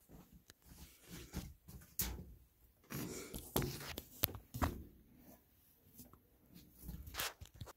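Irregular knocks, clicks and scrapes with rustling between them, the sound of handling and bumping in a small room; the busiest stretch falls in the middle.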